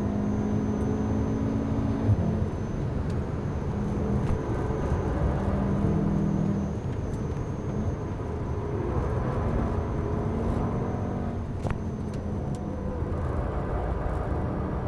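Volkswagen Golf R's turbocharged 2.0-litre four-cylinder engine running hard on a track lap, with road and tyre noise; the engine note eases off and comes back a couple of times as the car lifts and brakes into corners. A sharp click about two seconds in.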